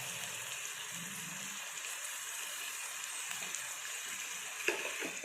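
Vegetables frying in hot oil in a pan, a steady sizzle, with a single light tap near the end.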